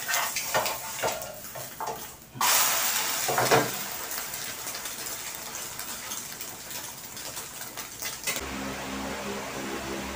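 Metal spatula clicking and scraping against a frying pan of egg, then a sudden surge of sizzling from the egg in hot oil about two seconds in, easing to a steady sizzle. A low steady hum comes in near the end.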